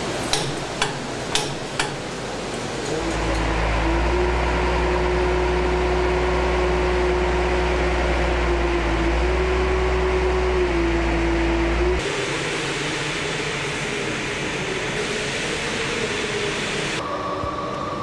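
Airbus A380 jet engines running: a steady heavy rumble with a constant turbine whine, changing abruptly about 3, 12 and 17 seconds in as the sound jumps between takes, each with the whine at a different pitch. A few sharp clicks sound in the first two seconds.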